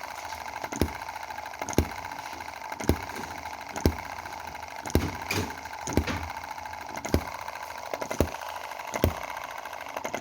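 Small model hit-and-miss single-cylinder gasoline engine running, firing with a sharp bang about once a second over a steady mechanical hum. It is firing regularly now that its valve timing has been moved a cog tooth to cure misfiring.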